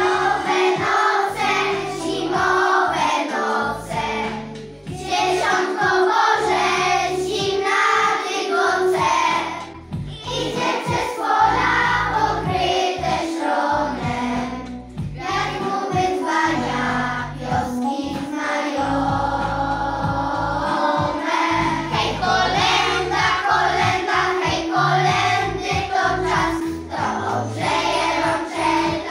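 A group of young children singing a Christmas song in Polish in unison, over a recorded instrumental backing track.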